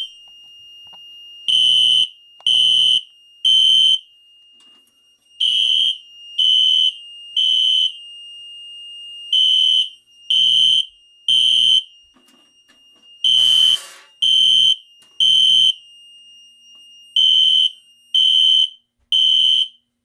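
System Sensor SpectrAlert fire alarm horn, driven by a Fire-Lite MS2 control panel, sounding a high-pitched beep in the three-pulse temporal evacuation pattern: three short beeps, a pause, repeated five times. A brief scraping noise overlaps the fourth set.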